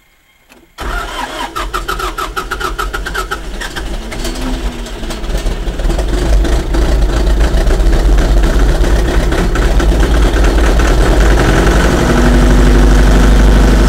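Allis-Chalmers 6080 tractor's diesel engine cold-starting after glow-plug preheating: it bursts into life under a second in, fires rough and uneven at first, then builds over several seconds to a steady, louder run.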